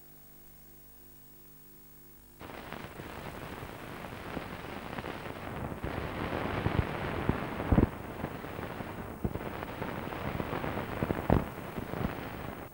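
Analogue videotape noise: a faint electrical hum, then about two seconds in a sudden loud hiss of static with scattered crackles and a few dull thumps.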